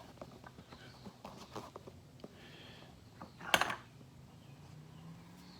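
Light handling noises: scattered small clicks and taps, with one louder knock about three and a half seconds in.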